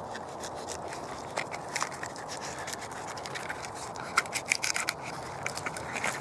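Gerber knife blade scraping and shaving bark off a birch log. It makes a run of short scrapes and crackles that come quickest and loudest about four to five seconds in.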